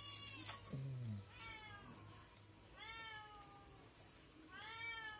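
A cat meowing faintly about four times, each meow rising and then falling in pitch. A brief low voice is heard about a second in.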